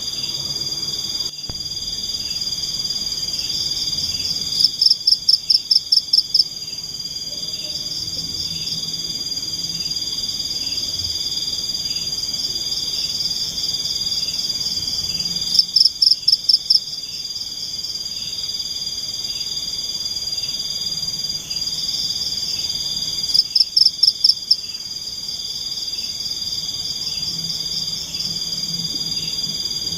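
Night forest chorus of insects: a steady high-pitched drone with a softer pulsing trill beneath it. Three times a louder, rapid run of about eight pulses breaks in for a second or two, about five, sixteen and twenty-four seconds in.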